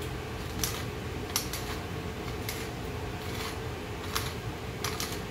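Pepper mill grinding black pepper in about nine short strokes at uneven intervals, over a steady background hiss.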